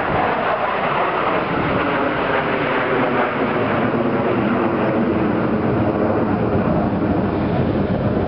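Loud, steady jet engine noise from fighter jets flying overhead in formation.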